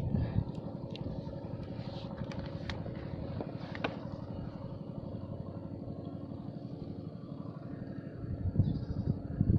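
Small boat engine running steadily with an even, fast putter. A louder rushing noise rises in near the end.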